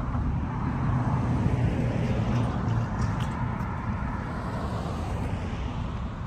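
Traffic noise: a vehicle going by, swelling over the first couple of seconds and then slowly fading into a steady rumble.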